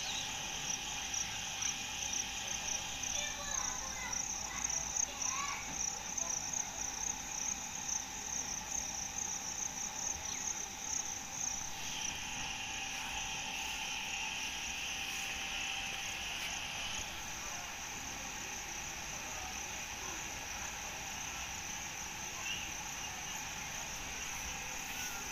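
Steady, high-pitched pulsing chorus of insects, with a few short chirps in the first several seconds and a second, lower buzz joining from about halfway through to about two-thirds through.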